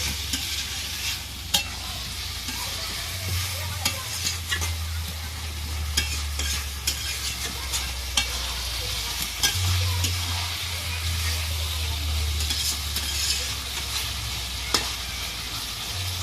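Chicken pieces and spice paste sizzling in a hot pot while a spatula stirs them, its edge scraping and knocking against the pot in irregular clicks.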